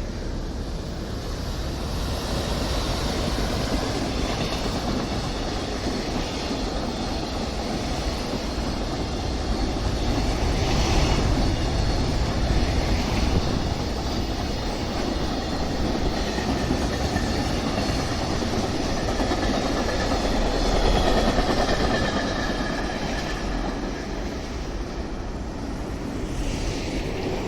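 A train passing close by for nearly half a minute, its wheels running steadily over the rails, loudest about ten seconds in and again about twenty seconds in.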